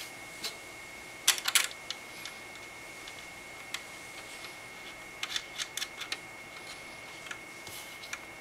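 Light metal clicks and taps of CPU-cooler mounting hardware, the Intel brackets and nuts being fitted by hand onto the socket standoffs. They come in scattered clusters: a quick rattle about a second and a half in and another run of clicks around five to six seconds in, over a faint steady high-pitched whine.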